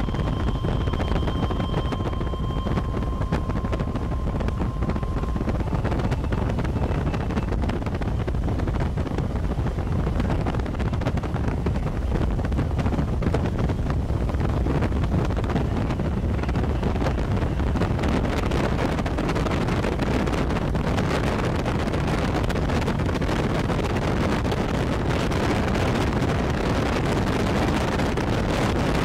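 Wind buffeting the microphone: a steady rushing noise with a deep rumble underneath, from a vehicle driving along. A faint steady tone sounds for the first few seconds.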